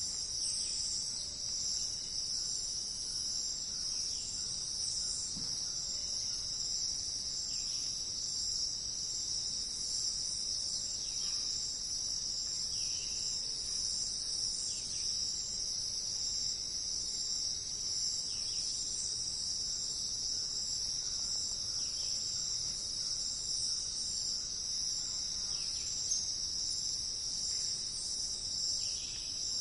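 Steady, high-pitched chorus of insects, constant throughout. A short, faint falling call repeats in the background about every three and a half seconds.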